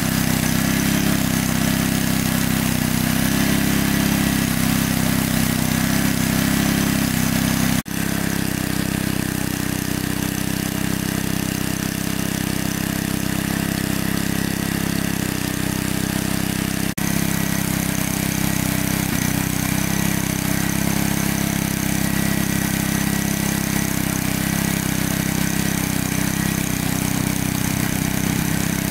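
Engine of a large water pump running steadily as it pumps water out of a lake. The sound drops out for an instant twice, about 8 and 17 seconds in.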